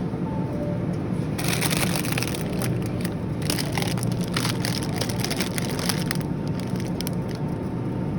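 Dense, irregular crackling and clicking over a steady low hum, busiest from about a second and a half in and thinning out near the end.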